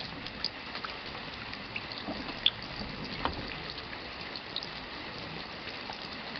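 Steady rain with a soft hiss and scattered water drops plinking, two of them louder a little over halfway in.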